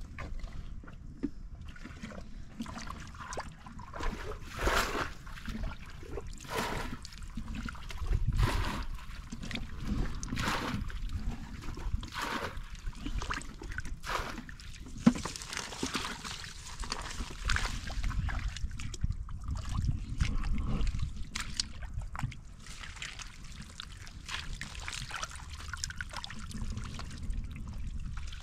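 Hands squelching and sloshing through shallow muddy water, in short irregular splashes every second or two.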